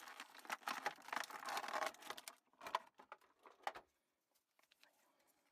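Clear plastic packaging crinkling as an action figure is pulled out of its bag: dense crackling for about two and a half seconds, then a few scattered crackles, stopping near four seconds in.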